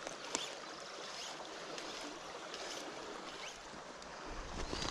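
Shallow river water rushing steadily over a gravel riffle. A low rumble comes in near the end.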